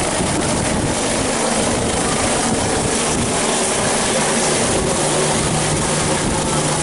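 Helicopter lifting off and climbing overhead: loud, steady rotor and engine noise, with a steady low hum setting in about five seconds in.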